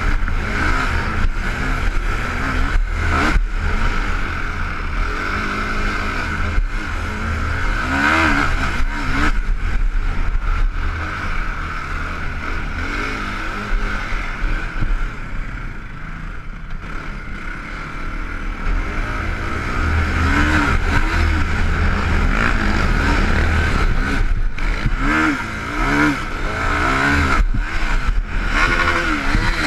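Can-Am DS450 quad's single-cylinder four-stroke engine at race pace, revving up and down as the throttle is worked over rough dirt. The throttle is chopped off briefly several times, with a quieter spell about halfway through before it pulls hard again.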